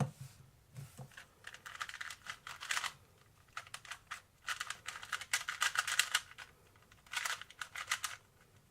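Plastic 2x2 Rubik's-type cube being turned fast in a timed solve: rapid runs of clicking and clacking, in three stretches with short pauses between.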